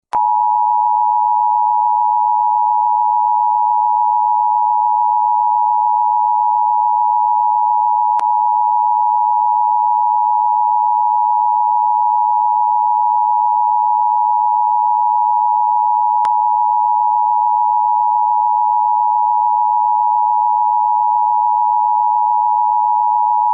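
Emergency-alert attention tone: one steady, unbroken electronic tone, loud and constant, with two faint clicks about eight and sixteen seconds in.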